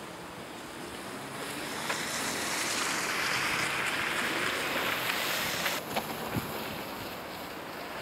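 A car circling close by on a snow-covered parking lot, its tyres hissing through the snow. The hiss swells over a couple of seconds, holds, then drops off suddenly about six seconds in, with a few knocks.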